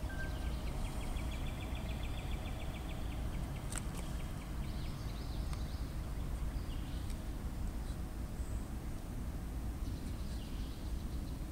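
Wild birds calling: a rapid trill of even, high notes for the first few seconds, then scattered short chirps, over a steady low rumble. A single sharp click comes about four seconds in.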